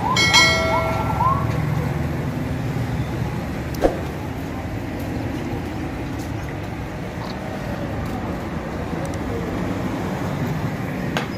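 Street traffic: a steady low rumble of passing road vehicles. A short pitched tone sounds in the first second or so, and a single sharp knock comes about four seconds in.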